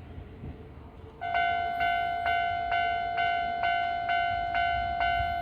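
Japanese level-crossing warning bell starting up about a second in and ringing in an even, steady rhythm of a little over two strokes a second, a sign that the crossing is closing for an approaching train. Before it, a low rumble.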